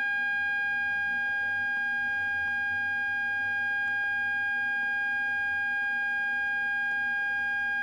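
A steady, unchanging high-pitched whine: one fixed pitch with overtones that never wavers, over a faint low hum.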